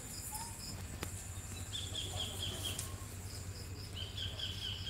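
Outdoor ambience with high, rapidly pulsed chirping calls, two runs of about a second each, over a steady low hum.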